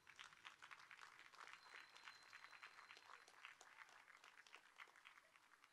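Faint applause from a small audience: many scattered hand claps that thin out near the end.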